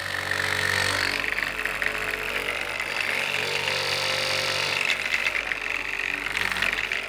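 Rubi Triller electric tile vibrator running with a steady mechanical hum while the machine is lifted and tilted off the tile.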